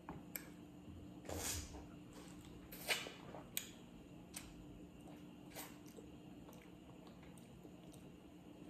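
Faint, scattered taps and clicks of kitchen handling over a steady low hum.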